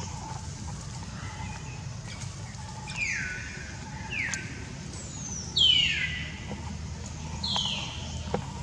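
Four high-pitched animal calls, each one sliding down in pitch, spaced a second or two apart; the third is the loudest.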